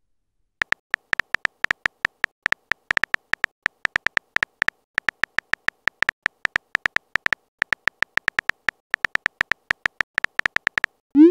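Phone keyboard typing sound effect: a quick, uneven run of short pitched clicks, one for each character typed, about seven a second with a couple of brief pauses.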